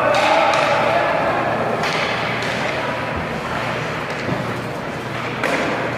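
Ice hockey play in an indoor rink: skates scraping on the ice, with sharp knocks from sticks and puck about half a second, two seconds and five and a half seconds in.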